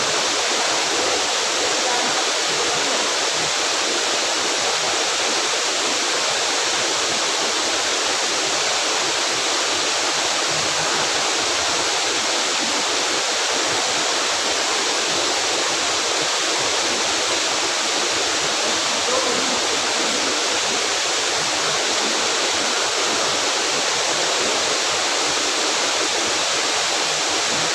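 Waterfall rushing with a steady, loud, unbroken roar of falling water.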